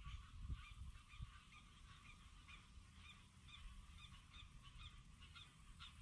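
Faint marsh chorus of frogs: many short, honking calls repeating and overlapping a few times a second, which the speaker takes for a pig frog.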